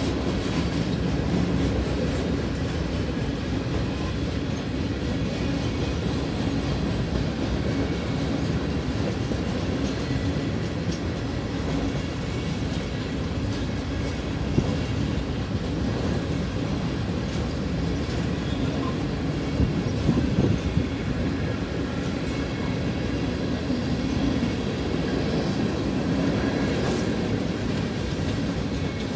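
Freight train flatcars rolling past, a steady rumble of steel wheels on the rails, with a few sharp knocks near the middle and about two-thirds through.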